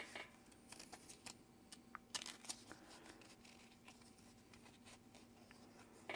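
Faint handling sounds of a NATO strap being threaded through a watch case: scattered small clicks and rustles over the first few seconds, then near quiet with a low steady hum, and a short louder sound near the end.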